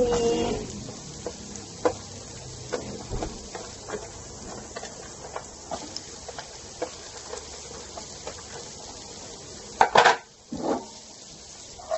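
Carrots sautéing in a frying pan: a low sizzle, with a utensil clicking against the pan every second or so. About ten seconds in comes a louder clatter and scrape from the pan.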